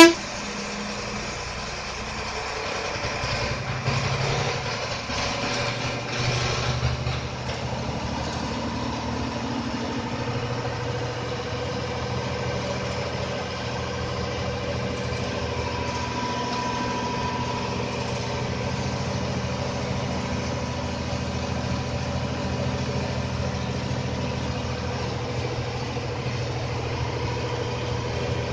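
Diesel engine of an APSRTC bus running steadily under way, heard from inside the cabin, with a couple of brief swells in loudness in the first several seconds.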